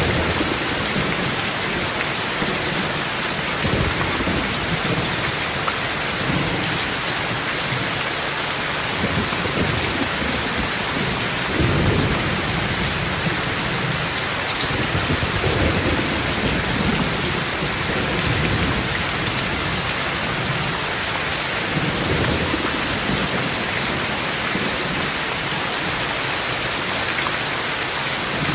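Steady rain with thunder rumbling low several times, the loudest rumble about twelve seconds in.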